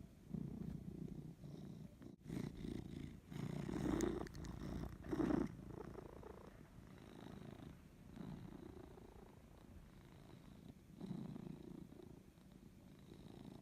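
Pet cat purring close to the microphone, a low rumble that swells and fades with each breath.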